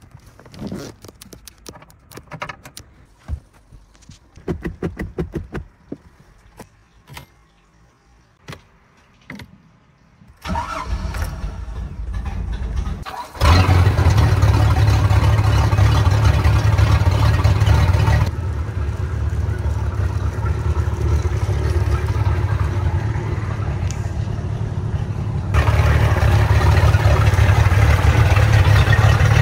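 MerCruiser 4.3 V6 inboard engine of a bowrider starting and running on the trailer, after some scattered clicks and knocks. It starts about ten seconds in, gets much louder a few seconds later, eases off a little, then picks up again near the end.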